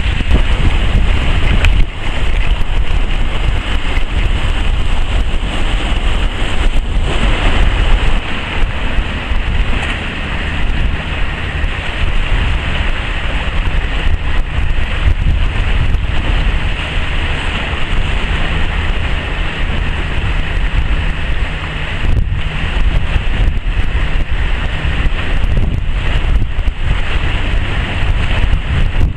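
Wind blowing hard across the microphone: a steady, heavy rumbling noise with a few brief knocks.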